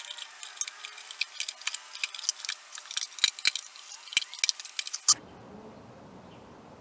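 Rapid small metallic clicks and clinks of steel screws being handled and set into a cardboard holder. They stop suddenly about five seconds in, leaving only a faint low rumble.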